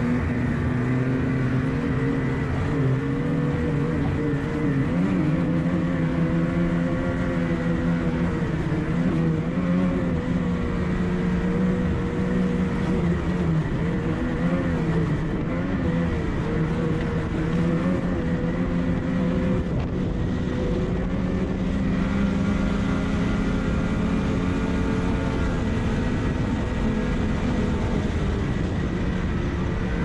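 Two-stroke engine of a 2023 Ski-Doo MXZ Blizzard snowmobile running at trail speed, its pitch wavering up and down with the throttle.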